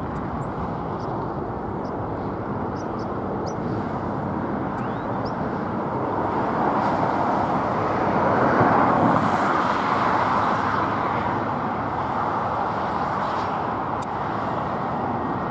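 Jet engine noise of an Airbus A320 on final approach and landing, a steady rushing roar that grows louder to a peak about eight to ten seconds in as the airliner passes and touches down, then eases off as it rolls out along the runway.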